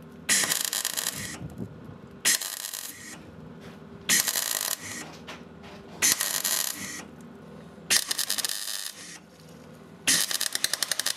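MIG welder arc crackling in six short bursts, each under a second and about two seconds apart, tack-welding the rusted sheet steel of a Citroën Traction Avant body.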